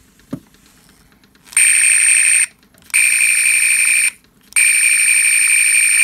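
Star Trek original-series phaser sound effect played through the speaker of The Wand Company's hand phaser replica on dial setting 9: three loud, buzzing, high-pitched electronic bursts of about a second each, the last the longest, after a short click near the start.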